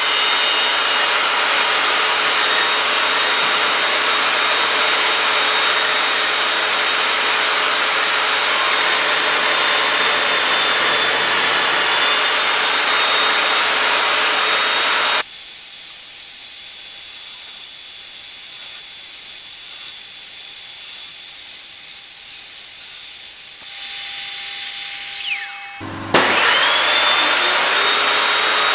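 Evolution Rage 5S saw running with a steady whine and cutting rebates in wood. About halfway through the noise drops abruptly to a quieter hum. Near the end the motor starts again and spins up to speed, its whine rising.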